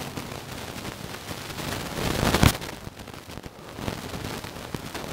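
Rustling and crackling of dense leafy undergrowth as a small dog pushes through it after a rabbit and a pool-skimmer net is pushed into the plants, with a louder burst of rustling about two seconds in.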